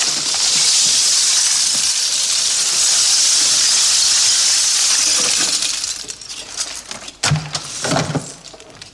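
A heap of seashells poured out onto the floor: a long, dense, glassy rattling cascade that lasts about six seconds, then tails off into a few separate clatters.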